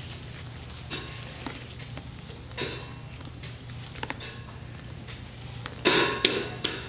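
Irregular light taps on a cymbal lying flat on the floor, played with a stick, each giving a short, damped metallic clink. A cluster of louder strikes comes about six seconds in.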